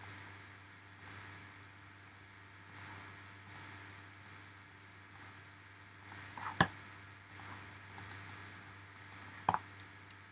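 Scattered computer mouse and keyboard clicks over a faint steady hum, with two louder clicks about six and a half and nine and a half seconds in.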